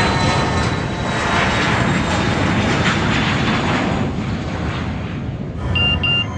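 Jet airliner taking off: a loud, steady jet-engine roar that swells and then fades. About five and a half seconds in, it cuts off and gives way to background music with short, repeated high beeps.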